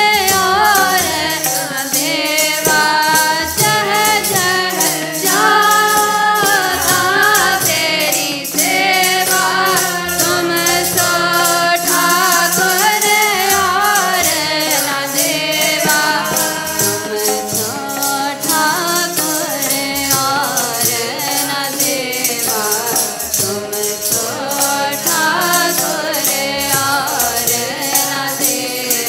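Sikh kirtan: singing with two harmoniums holding steady reed chords and a drone, and a tabla keeping a quick, regular beat.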